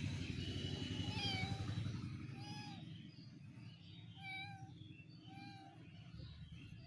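Kitten mewing: short, thin mews repeated about every second, over a low rumble that fades out about two seconds in.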